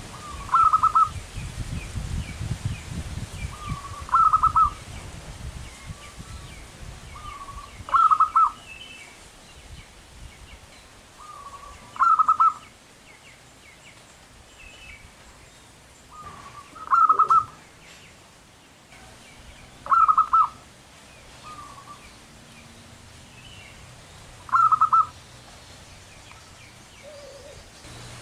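Zebra dove (perkutut) cooing. Each phrase is a soft lead-in note followed by a short, fast trilled burst, repeated seven times about every four seconds.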